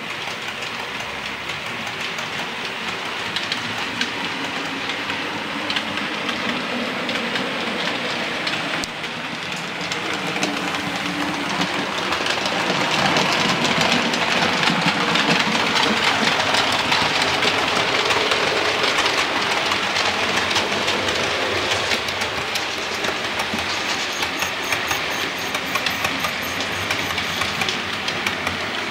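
Model railway trains running on the track: a steady rattle of small wheels clicking over the rail joints, getting louder about twelve seconds in as a locomotive passes close, then easing off.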